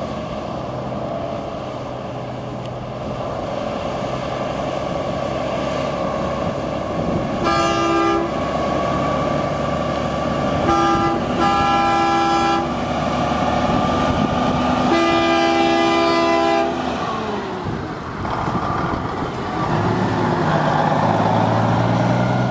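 Diesel semi truck running, with four blasts of a multi-tone air horn: one about eight seconds in, two close together around eleven to twelve seconds, and a longer one around fifteen to sixteen seconds. A deeper engine rumble builds near the end.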